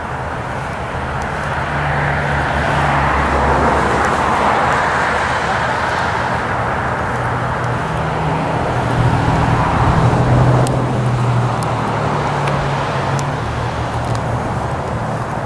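Steady rumble of distant engines with a low hum underneath, swelling a little around four seconds in and again around ten seconds in.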